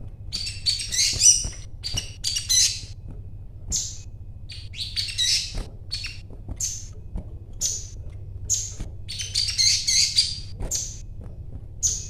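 Caged sogon (sogok ontong), a sunbird, calling busily: sharp high chirps about once a second, broken by three quick twittering runs, near the start, in the middle and towards the end.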